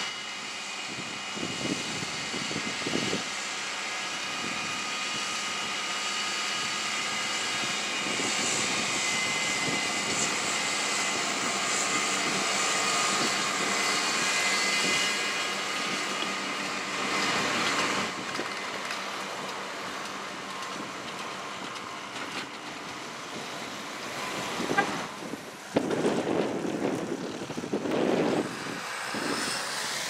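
Fendt 514 tractor running steadily under load as it pulls a McHale round baler, with a high whine over the engine note. It grows louder as the tractor passes close, drops off sharply, and a few uneven knocks and thuds come near the end.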